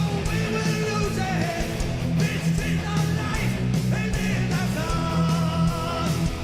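Rock music with guitar, a steady drum beat and singing.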